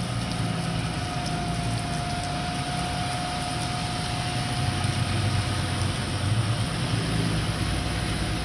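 Fire engine running steadily to drive its pump as it pumps out floodwater, a low drone that swells and eases, with a thin steady whine over it for the first few seconds. The hiss of rain and of tyres on the flooded road runs under it.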